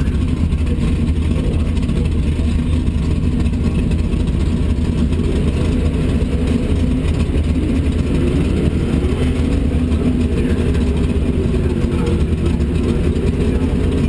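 Car engine idling with a low, steady rumble, heard close up from the car's hood. From about five seconds in, a fainter wavering tone rides over it.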